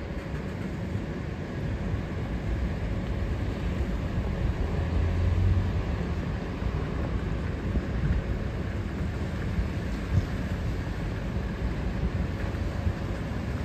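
Wind rumbling on the microphone over a steady low outdoor drone, with a faint steady hum; the rumble swells for a couple of seconds near the middle.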